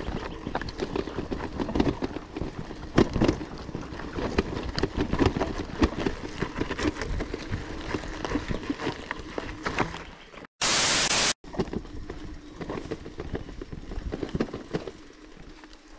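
Mountain bike clattering and rattling over a rocky gravel trail, tyres crunching on loose stones with irregular knocks from the bike. About two-thirds of the way through, a short, loud burst of hiss cuts in between two brief dropouts to silence, after which the rattling goes on more lightly.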